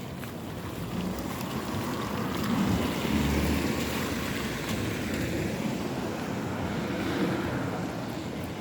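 Steady rain, with a low rumble swelling about three seconds in.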